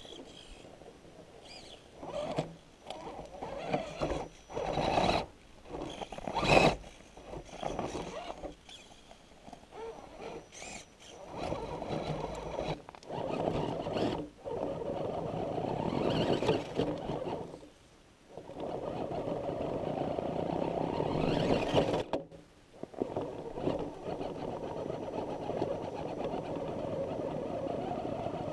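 Axial SCX10 Honcho RC rock crawler's electric motor and gear drive whining in throttle bursts as it works up a steep rock ledge. The bursts are short at first, then held for several seconds at a time. A few sharp knocks come around five to seven seconds in.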